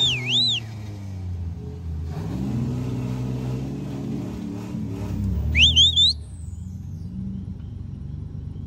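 Off-road truck engine revving up and down as it works along the trail. Two short, loud, high warbling squeals sound over it, one right at the start and one about five and a half seconds in.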